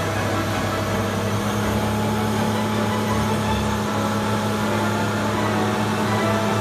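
Chevrolet Silverado pickup's engine running at steady revs while its rear wheels spin in place, throwing off thick smoke.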